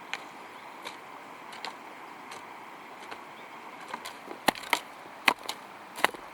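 A hand tool chopping in a garden: faint scattered ticks at first, then from about four seconds in a run of loud, sharp strikes, two or three a second.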